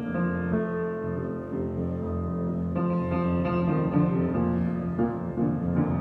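Solo grand piano improvisation: slow, held chords ringing on, with new chords struck about three seconds in and again near the end.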